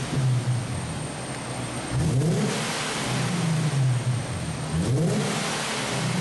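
Infiniti QX50's 3.7-litre VQ37 V6 running with its muffler removed. It idles and is revved in two quick throttle blips, about two seconds in and again near the five-second mark, each rising sharply and falling back to idle.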